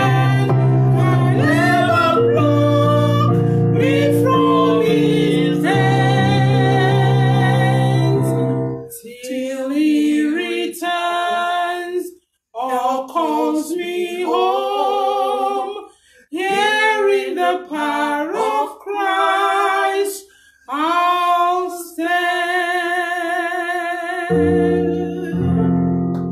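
A woman sings a slow melody with vibrato into a handheld microphone, accompanied by electronic keyboard chords. About nine seconds in, the keyboard drops out and she carries on alone in short phrases; the chords come back near the end.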